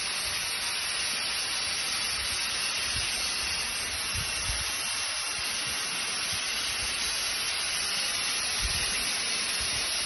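Natural gas escaping under pressure from a ruptured pipeline, a steady, unbroken hiss.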